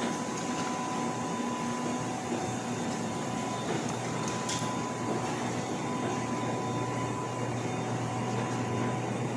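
Steady hum and whir of a CO2 laser cutting machine running, with a thin steady whine through it.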